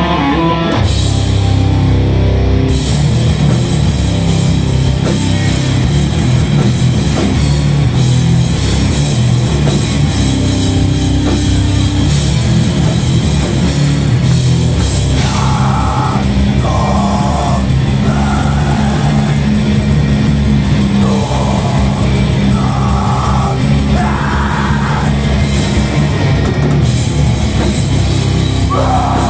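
Live rock band playing loud, heavy guitar rock on electric guitars, amplified through the club's speakers.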